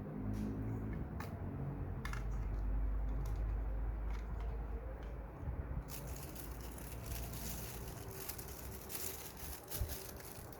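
Hands handling lamp packaging: a low handling rumble with scattered small clicks, then plastic wrapping crinkling and rustling with quick ticks from about six seconds in.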